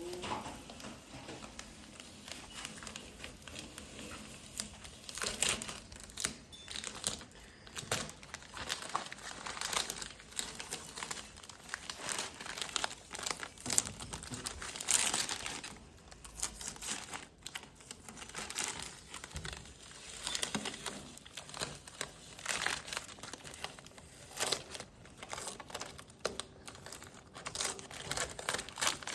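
Star-shaped stencils being peeled off a freshly painted lawnmower body: irregular crinkling and tearing of the stencil material, continuing in short bursts.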